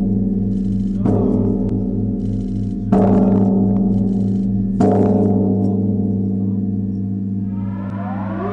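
A large warning bell struck three times about two seconds apart, each stroke ringing on in a long, deep hum: the solemn tolling of a memorial bell. Near the end an air-raid siren starts to wind up, rising in pitch.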